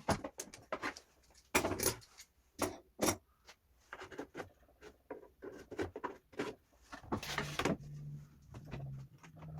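Knocks and clicks of tools and wood being handled on a workbench, a dozen or so separate taps and clacks. A low steady hum joins in for the last couple of seconds.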